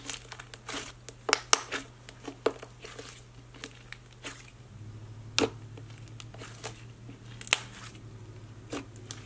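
Thick, creamy slime being squeezed, folded and pressed by hand, giving irregular sticky clicks and pops, over a faint steady low hum.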